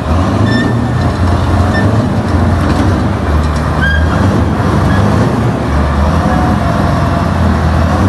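Heavy armoured military vehicle's engine running with a loud, steady low rumble that swells and eases, with a few faint short squeaks over it.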